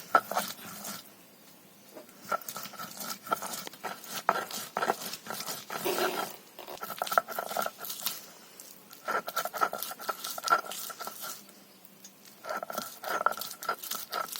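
Boiled new potatoes, beans, green chillies and fish being mashed and mixed together by hand for a bhorta: several bouts of quick pats and clicks with short pauses between them.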